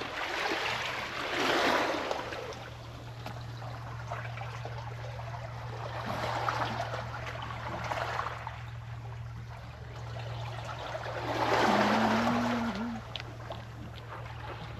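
Sea waves washing in over a pebble shore and draining back, swelling in three surges a few seconds apart, the loudest near the end. A steady low hum runs underneath.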